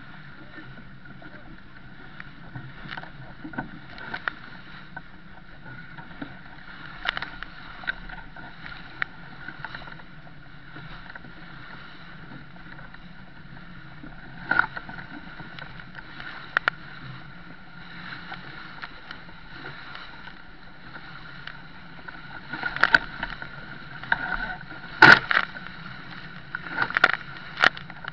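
Sailing yacht driving hard through choppy waves: a steady rush of water and wind along the hull, with sudden splashes and knocks as waves break over the bow, coming thickest in the last few seconds.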